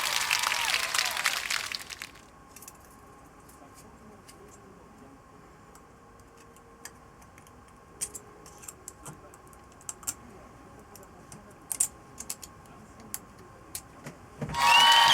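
Light metallic clicks and clinks, scattered and irregular, like small engine parts and hand tools being handled and set down during cylinder-head assembly. They follow a louder passage that fades about two seconds in.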